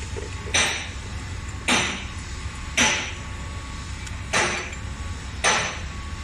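Sharp metal-on-metal knocks, five of them at an even pace of about one a second, each with a short ring, over a steady low hum.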